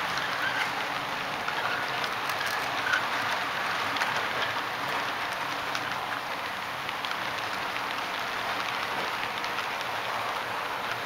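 HO-scale model freight cars rolling past on the track: a steady rushing rattle of small wheels on the rails, with many faint irregular clicks.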